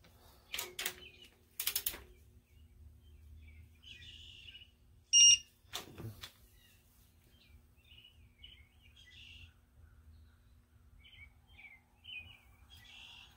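Digital torque wrench tightening a cylinder head bolt. There are a couple of ratchet clicks near the start, then about five seconds in a short, loud electronic beep, the wrench signalling that the set torque is reached, followed by a knock.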